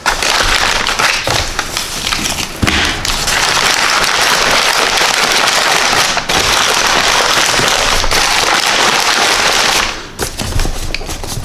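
Packing material being handled and pulled out of a shipping box: a continuous loud crinkling and crackling with many small clicks, easing off about ten seconds in.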